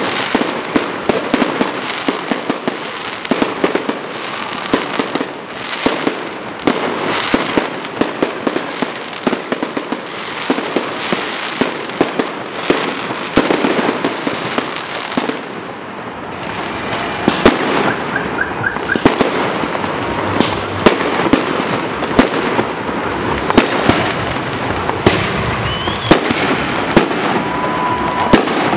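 Aerial fireworks going off in a dense barrage: a rapid, unbroken run of sharp bangs over continuous crackling from bursting shells.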